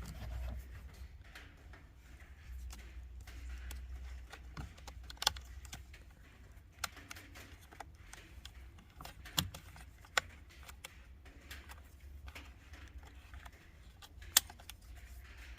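Handling noise from a steering wheel and its wiring connectors being worked loose: a low rumble of hands and parts moving, with about five separate sharp clicks and knocks, the sharpest near the end.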